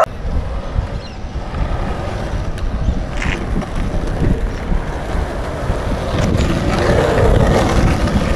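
Skateboard wheels rolling over rough asphalt, a steady rolling noise with wind buffeting the microphone.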